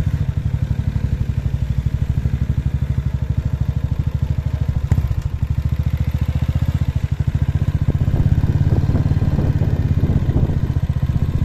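Motorcycle engine running steadily while being ridden, with rapid even low pulses; one sharp knock about five seconds in.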